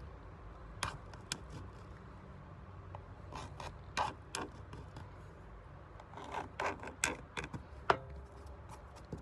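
Sharp chisel scraping and cutting into the plastic of a UPVC door, opening a crack into a V shape for filler: a series of short, irregular scrapes and clicks, the sharpest near the end.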